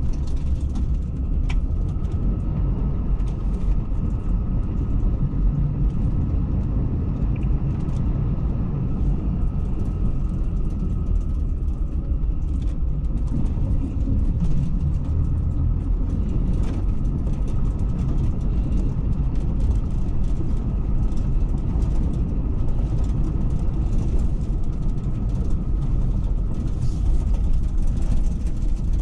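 Intercity executive coach driving slowly, heard from inside the cabin: a steady low engine and road rumble, with a few faint clicks.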